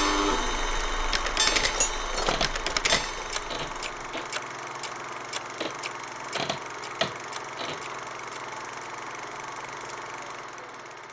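A held musical chord ends just after the start; then scattered, irregular clicks and crackles over a steady hiss, the clicks thinning out and the hiss fading away near the end.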